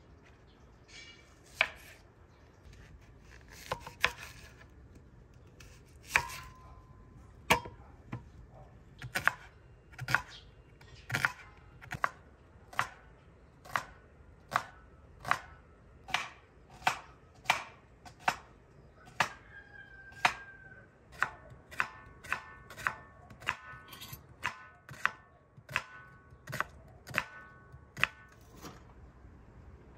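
Kitchen knife slicing onions on a wooden cutting board: sharp knocks of the blade striking the board, a few spaced ones at first, then a steady run of about one to two cuts a second.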